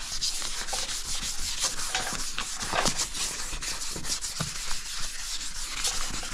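Fine-grit sandpaper on a hand pad being rubbed back and forth over a painted car bumper in repeated strokes, a steady scratchy hiss. This is the quick scuff that preps the repaired corner and its blend area for paint.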